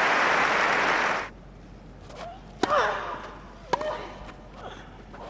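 Crowd applauding, cut off suddenly about a second in; then a tennis rally on grass, racket strikes of the ball, the two loudest each followed by a player's short cry falling in pitch.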